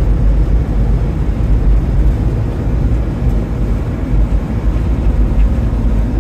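Steady low rumble of a vehicle driving on a sealed road, heard from inside the cab: engine and tyre noise.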